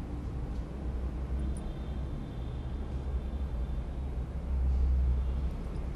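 Low steady background rumble that swells briefly about four and a half seconds in.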